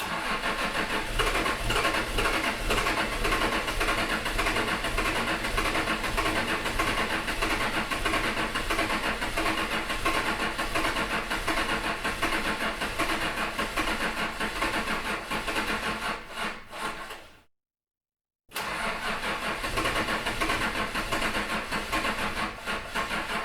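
A car engine is cranked over on its starter motor but never catches, so the car won't start. One long crank of about seventeen seconds trails off and stops. After a second's pause a second crank begins.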